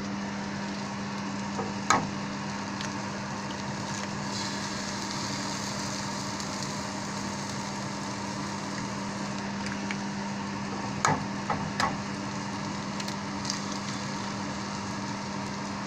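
Diced bologna, onions and eggs frying in a hot cast iron pan: a steady sizzle over a constant low hum. There are sharp taps of eggs being cracked against the pan, one about two seconds in and three in quick succession about two-thirds through.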